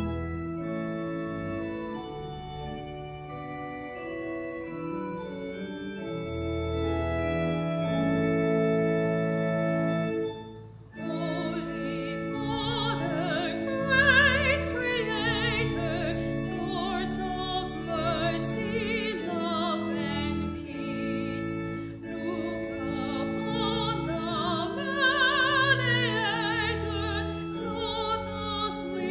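Church organ playing sustained chords as an introduction, breaking off briefly about ten seconds in. A woman's classically trained solo voice then sings with strong vibrato over the organ accompaniment.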